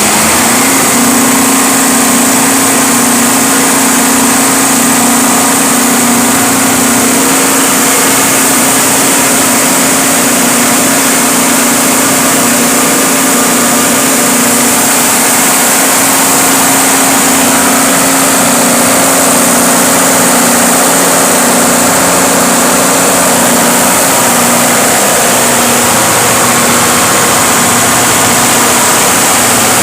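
Cummins 6BTA5.9 turbocharged inline-six diesel engine idling steadily.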